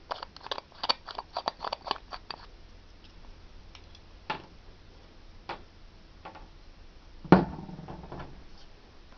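Small metallic clicks from an antique Elgin pocket watch being handled: a quick run of about six clicks a second for the first couple of seconds, a few single clicks after, then a louder knock with a short ring about seven seconds in.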